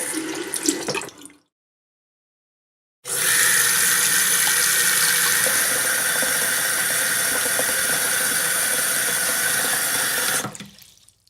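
A short water sound that stops about a second and a half in, then, after a pause, a steady stream of running water for about seven seconds that fades out near the end.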